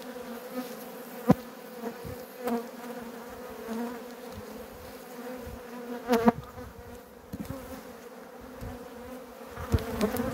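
Honey bees buzzing over an open hive in a steady hum, with louder buzzes rising and falling as single bees fly close past, around six seconds in and near the end, and a sharp knock about a second in. The keeper calls the colony restless and aggressive, though not inclined to sting.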